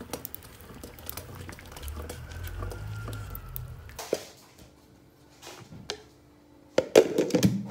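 Pot of rice boiling over an open fire and stirred with a wooden ladle: a low, steady rumble of flame and bubbling with small knocks. It cuts off about four seconds in. A few light clicks and then a louder metallic clatter follow near the end.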